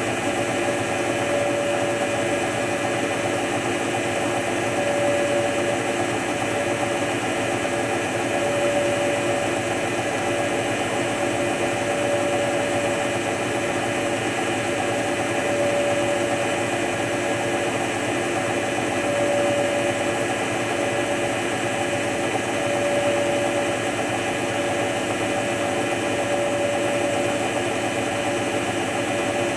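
Hotpoint HF8B593 washing machine spinning steadily at speed: a continuous motor whine and drum hum that swells gently every few seconds.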